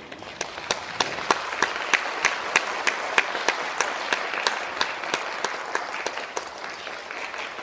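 Audience applause in a concert hall, swelling up at the close of the piece, with one nearby clapper's sharp claps standing out at about three a second until they fade after about six seconds.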